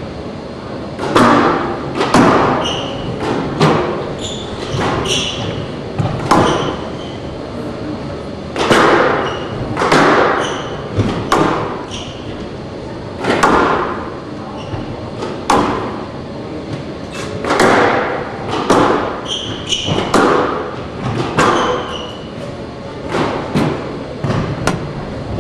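Squash rally: the ball cracking off racquets and the court walls, sharp echoing hits every second or two, with short high shoe squeaks on the court floor between them.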